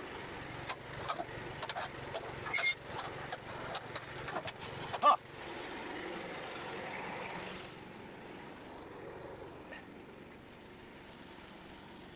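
A run of sharp knocks and clatters, the loudest about five seconds in, over a steady engine noise. After the clatter stops, the engine keeps running and drops a little in level near the end.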